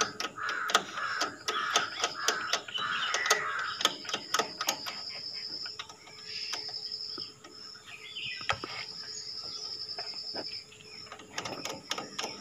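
Crows cawing several times in quick succession over the first few seconds, over a steady high-pitched buzz. Sharp clicks and taps are scattered throughout.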